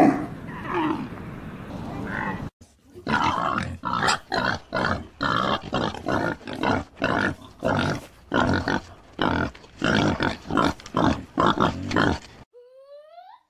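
An animal's short, rough calls repeated in a steady rhythm, about two a second. They start after a sudden cut a couple of seconds in and stop abruptly near the end.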